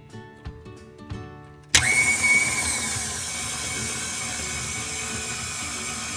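Light background music, then a little under two seconds in an electric mixer switches on abruptly and runs steadily with a high whine, beating the flour mixture into the cookie dough.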